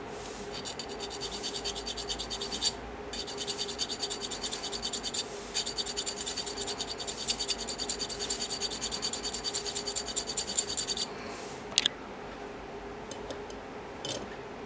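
Flat metal hand file rasping in quick back-and-forth strokes across the edge of a small diecast toy truck cab, pausing briefly twice. The filing stops about 11 seconds in, and a couple of sharp clicks follow.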